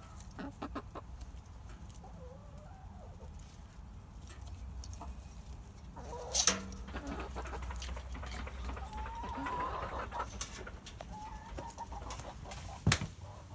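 Backyard hens clucking softly, with two sharp knocks, one about halfway through and one near the end.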